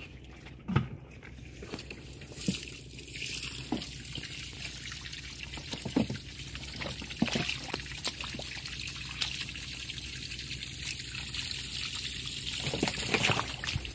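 Muddy pond water trickling and dripping, with scattered small splashes and clicks.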